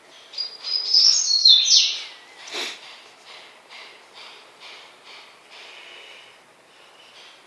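Birds chirping, loudest in the first two seconds with quick falling high notes, then fainter. A single sharp knock comes about two and a half seconds in.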